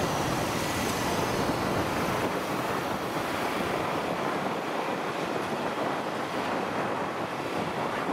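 Steady rush of wind over the microphone of a camera riding on a moving motorcycle, with road and traffic noise beneath it.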